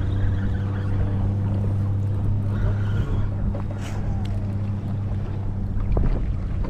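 A boat's motor running with a steady low hum. A few sharp knocks and clicks come about six seconds in.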